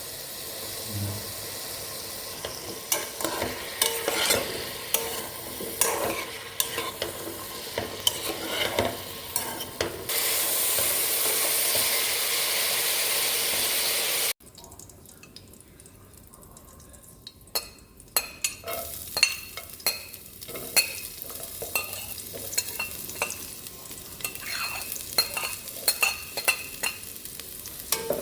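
Food frying in a pan while a spatula stirs and scrapes against the pan in quick, uneven strokes. About ten seconds in, a louder steady sizzle takes over for about four seconds and cuts off suddenly; after that the frying is quieter and the scraping goes on, some strokes leaving a short metallic ring.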